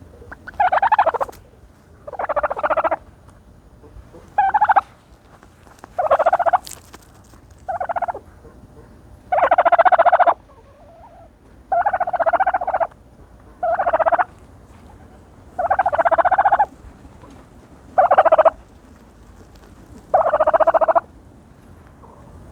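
Turkey calling while dust bathing: about eleven short calls, each under a second, repeated roughly every two seconds.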